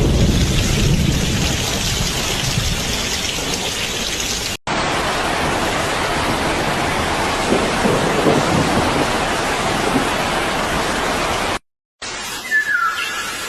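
Steady heavy rain, with a low rumble of thunder at the start. The sound cuts out briefly twice; after the second break the rain is quieter and a short falling call is heard.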